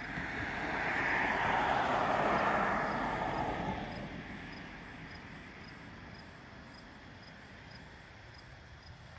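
A motor vehicle driving past on the road, its tyre and engine noise swelling to a peak about two seconds in and fading away by about five seconds in.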